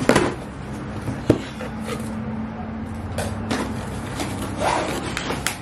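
Cardboard shipping box being opened and handled: scattered knocks, scrapes and rustles of the flaps and packaging as it is pulled open.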